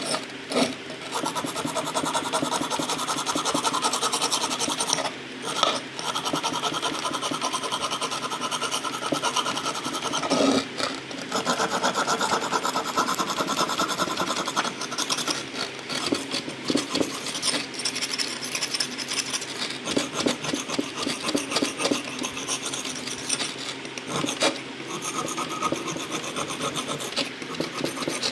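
Rasping, scraping strokes of an abrasive hand tool worked back and forth over the rusted steel head of an old adze, in uneven strokes with short pauses about five and ten seconds in.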